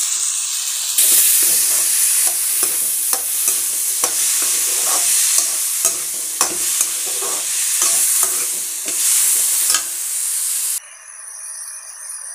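Perforated steel spatula stirring and scraping diced kohlrabi and tomato purée in a hot steel kadai: a steady sizzle with frequent sharp clinks of metal on metal. Near the end the stirring stops and it drops to a quieter sizzle.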